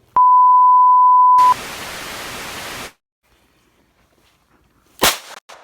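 A loud steady beep for just over a second, followed by about a second and a half of static hiss, both edited into the sound track. About five seconds in, a single shot from a .22 LR pistol, with a smaller click just after it.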